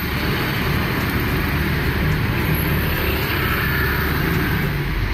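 Street traffic noise with motorbike engines running close by, a steady low rumble.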